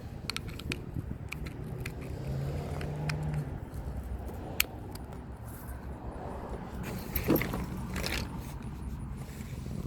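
Metal hand tools working a bolt with a 10 mm socket: scattered light metallic clicks and clinks, one sharp click about halfway through and a few louder clinks near the end, over a low steady rumble.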